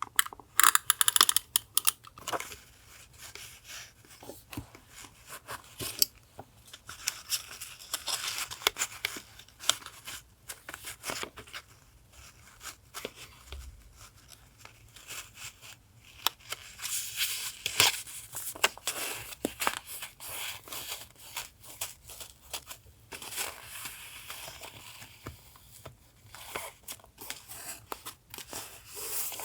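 Paper being handled for a collage journal: rustling and tearing in several short spells of a second or two, with light taps and clicks between them.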